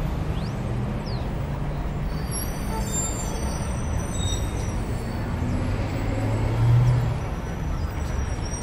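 Street traffic noise, a steady low rumble, with one vehicle's engine swelling louder about seven seconds in. Faint high chirps sound in the middle.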